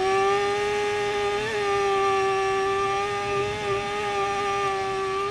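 Honda Fireblade superbike's inline-four engine held at steady high revs at racing speed, heard from an onboard camera, with a brief wobble in pitch about a second and a half in.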